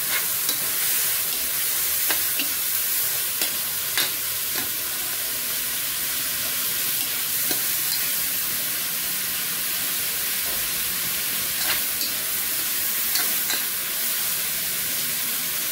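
Shredded cabbage, tomato and onion sizzling in a metal wok while a spatula stirs them, with a few short clicks as the spatula scrapes and taps the pan.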